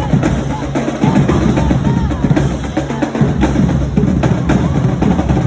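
Marching band drumline playing: bass drums and snare drums beating out a steady cadence with rolls.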